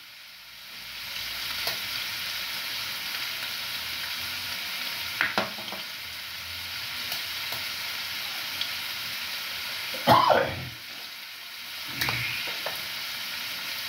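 Pieces of meat frying in a pan on a gas stove, a steady sizzle, with a few light clicks and a short louder clatter about ten seconds in.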